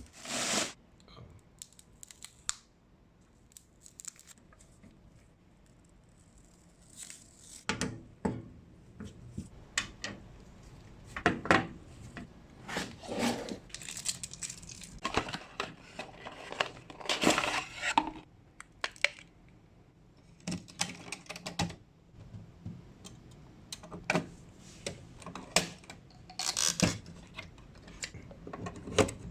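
Packaging being handled and opened, plastic and cardboard crinkling and tearing in short bursts, with light knocks and clicks of parts being set down.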